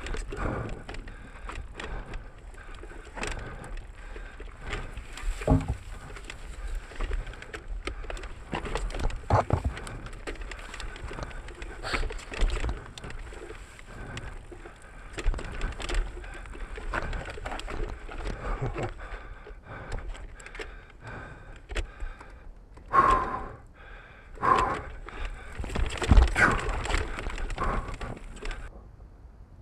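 Mountain bike ridden down rough, rocky singletrack: tyres and frame knocking and rattling over rocks and roots in irregular jolts, with a few louder knocks near the end.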